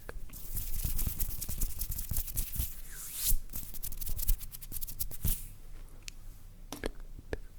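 Close-miked ASMR trigger sounds made by hand on objects: quick scratching and rustling with many small clicks and taps. There are louder scratches about three and five seconds in, and it thins out near the end.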